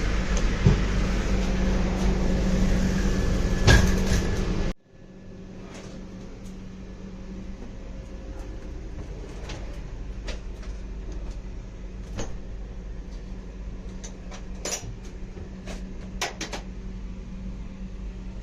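Train at the platform: a loud steady running noise with a constant hum and one sharp knock. After an abrupt cut, a quieter passenger coach interior with a low steady background and scattered clicks and knocks, like doors and fittings being handled.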